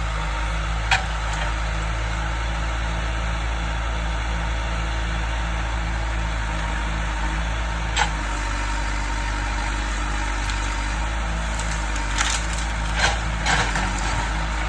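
John Deere 310D backhoe's diesel engine running steadily while it clears brush, with sharp cracks of wood snapping about a second in, around the middle, and several more near the end.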